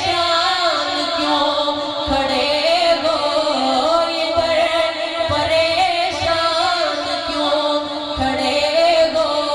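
A man singing a naat, an Urdu devotional poem in praise of the Prophet, into a microphone in long, drawn-out melodic phrases.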